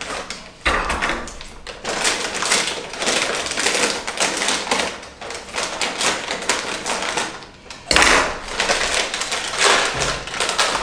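Metallic anti-static plastic bag crinkling and rustling as a switch power supply is pulled out of it. The crackles are irregular, with sharper, louder bursts of handling about a second in and again about eight seconds in.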